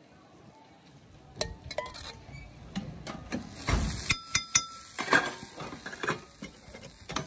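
A steel spatula clinking and scraping on a flat iron griddle (tawa) while oil is spread over a dosa. The metal strikes come sparsely at first, then quick and loud about four to five seconds in, some ringing briefly.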